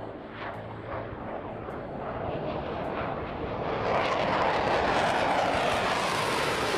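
Jet engine noise: a steady rushing sound that grows louder over the first four seconds or so and then holds.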